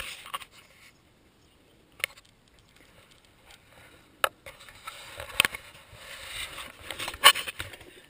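Handling noise from a small action camera being moved and turned around: a few sharp clicks and knocks, one about two seconds in and more in the second half, over a rubbing rustle that builds in the last few seconds.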